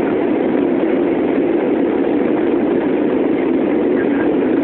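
Airliner cabin noise in flight: a steady, even rumble of the jet engines and rushing air, heard from a window seat during the climb after takeoff.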